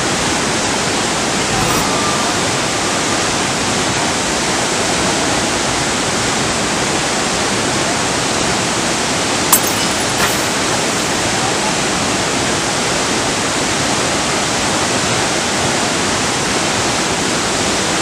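Waterfall and a rocky stream cascading over boulders: a loud, steady rush of falling water. Two short clicks sound a little past halfway.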